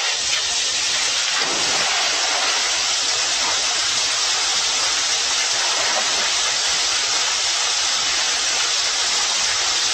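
Water pouring down a pool waterslide and splashing into the pool: a steady, loud rush of falling water.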